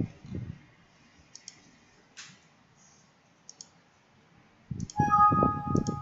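Computer mouse clicks and keyboard keys, a few separate clicks at first, then a louder run of rapid key-clatter about five seconds in, with a brief tone of several pitches over it.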